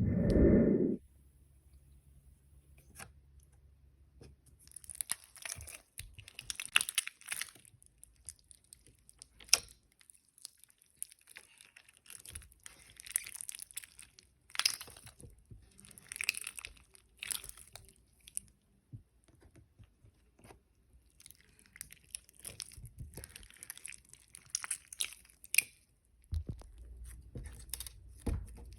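Rock-hard slime being squeezed and pulled apart by hand, crackling and crunching in irregular short bursts. A brief loud sound comes right at the start.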